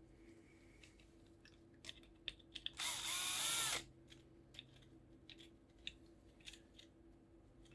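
Cordless power screwdriver or drill run in one short burst of about a second, about three seconds in, its pitch rising and then falling as it spins up and stops. Light scattered clicks of small tools and metal parts being handled come before and after it.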